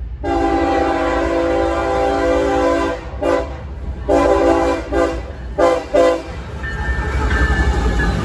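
Freight diesel locomotive's multi-chime air horn sounding a long chord of about three seconds, then a run of shorter blasts, the last three quick and short. After the horn stops, the low rumble of the locomotive and train grows as it comes up and passes.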